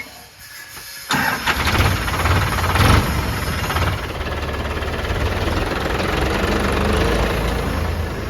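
A diesel engine comes in abruptly about a second in and then runs loud and steady.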